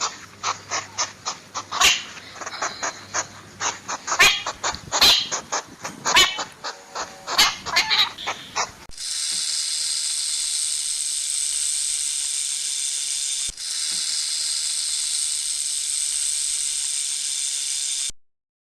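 Animal sounds: a quick run of clicks and short chirps for about nine seconds, then a long steady hiss that breaks off once briefly.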